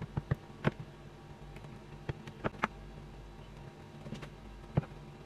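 Large chef's knife slicing through a granola bar packed with cashews and almonds on a bamboo cutting board: a scattering of short, sharp clicks and knocks as the blade cuts through the nuts and meets the board, about eight in all at irregular intervals.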